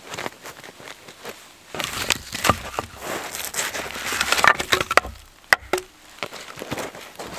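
Split firewood logs being handled and set down on snow, knocking against each other, with rustling and crunching between the knocks; one sharp knock stands out about five and a half seconds in.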